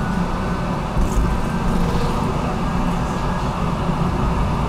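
HTM GTL8 articulated tram heard from inside, running along the track with a steady low running noise.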